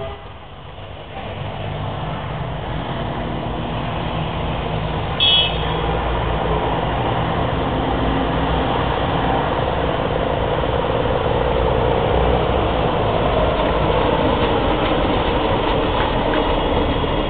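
Diesel multiple-unit railcar approaching and passing close by, its diesel engine running under power and growing louder as it nears, with the rumble of wheels on the track. A short high-pitched sound about five seconds in.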